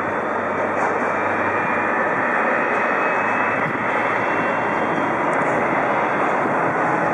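Jet engine noise from a Boeing 777-300 rolling out on the runway after landing: a steady rushing noise with a faint high whine that slowly rises in pitch.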